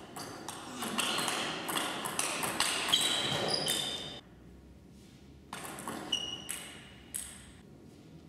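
Table tennis rally: a quick run of celluloid-type ball hits off rubber bats and the table, ending about four seconds in. A few single ball taps follow after a short pause.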